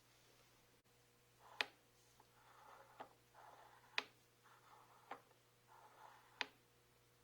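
Hand work on metal parts: five sharp clicks about a second apart, with short soft scraping sounds between them.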